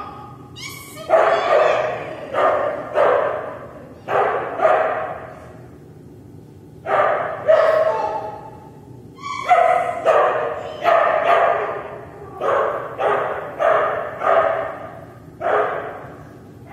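Smooth collie barking over and over in quick runs of barks, with a pause of a couple of seconds after the first few. Each bark echoes in a large hall.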